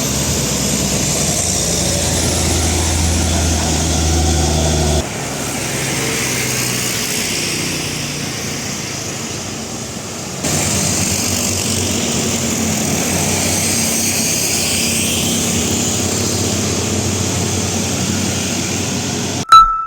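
Heavy diesel buses or trucks labouring up a steep incline, the engine note under load with road and wind noise; the sound changes abruptly twice, about five and ten seconds in, as one pass is cut to another.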